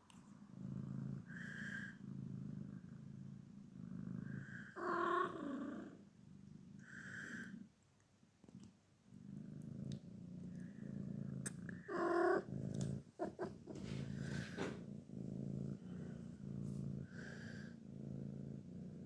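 Sphynx cat purring in long pulsing stretches, broken by two louder drawn-out calls about five and twelve seconds in and a few short higher chirps.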